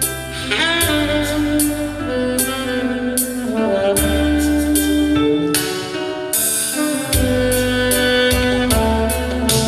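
Saxophone playing a slow melody of long held notes over a backing track with a steady beat, sliding up into a note about half a second in.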